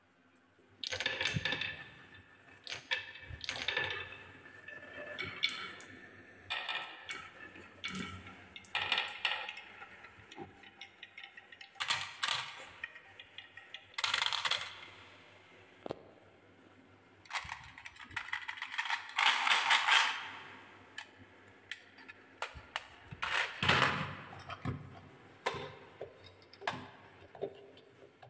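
Marbles rolling and clattering along wooden marble-run tracks: bursts of rattling clicks that swell and fade every few seconds, with sharp clacks as marbles knock together and drop into a plastic toy truck.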